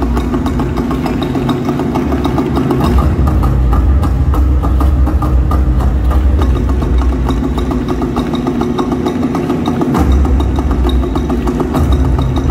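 Large upright wooden drums beaten in a fast, steady, loud pattern, with a heavy deep rumble under the rapid strokes; the deep part drops out briefly about ten seconds in.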